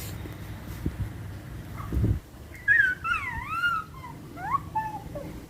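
Baby squealing: a run of short, high-pitched squeals that swoop up and down in pitch through the second half, after two dull low thumps in the first couple of seconds.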